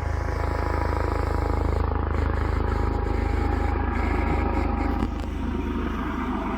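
Low-flying propeller aircraft engine droning steadily overhead with a deep rumble, easing off a little near the end.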